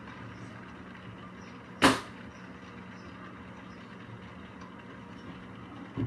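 A steady electrical hum, with one sharp knock about two seconds in and a softer bump near the end.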